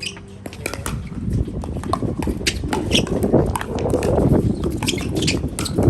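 Wind buffeting the microphone, a low rumble that builds to its loudest past the middle, with scattered sharp clicks and taps of pickleball play, paddle and ball strikes and steps on the court, throughout.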